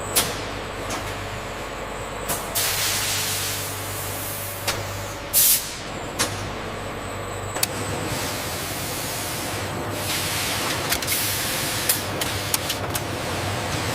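Factory floor ambience: a steady machinery hum with several bursts of air hissing, the loudest and shortest about five seconds in, and scattered clicks and knocks.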